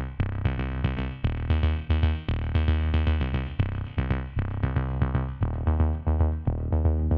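Electronic background music with synthesizer notes over a steady, quick beat.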